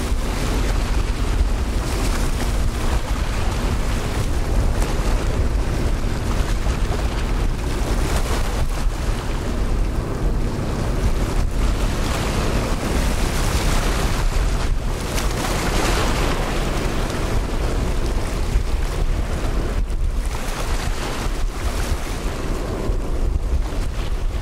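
Strong wind buffeting the microphone: a loud, gusting rush, heaviest in the low end, swelling for a few seconds around the middle.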